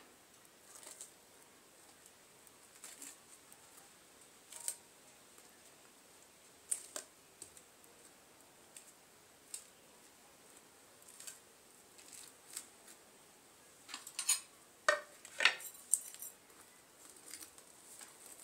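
Scattered faint clinks and taps of a plate and a steel pot as fried vadas are lifted and dropped one by one into curd, with a short run of louder clinks near the end.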